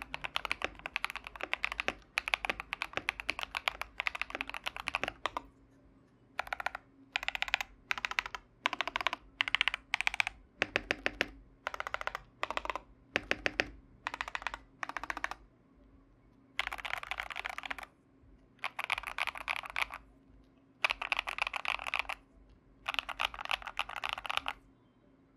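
Typing on a mechanical keyboard with stock KTT Hyacinth linear switches in a Tester 68 board with a steel plate, PE foam between plate and PCB, and lubed clipped stabilizers. A steady run of fast keystrokes for about five seconds gives way to short, separate bursts of rapid key presses, then four longer bursts of fast typing near the end.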